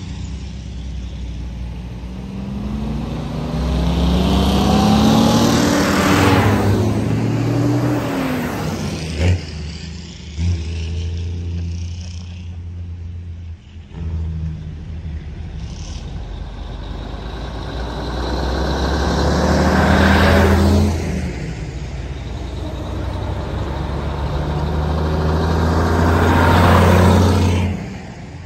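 Antique heavy trucks driving past one after another, each engine note swelling as it approaches and dropping in pitch as it goes by. There are three pass-bys: about six seconds in, about twenty seconds in, and near the end.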